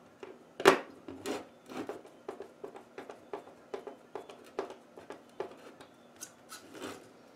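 Hand screwdriver turning a screw into the sheet-metal frame of an LCD monitor's video board: a run of short metal clicks, about two or three a second, the loudest one near the start.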